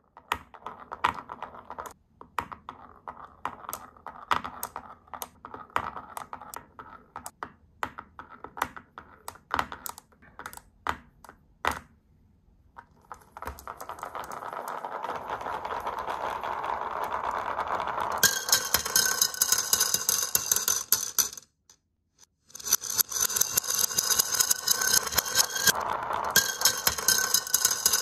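Marbles clicking one at a time as they are set onto a wooden wave-shaped slope. About halfway through, a steady rolling rumble starts as many marbles run down the slope's winding grooves, then turns to a loud ringing clatter of marbles knocking together and dropping into a paper cup, with a short break near the end.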